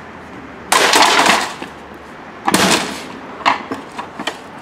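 Laptop computer being smashed: two loud crashes about two seconds apart, then two lighter knocks.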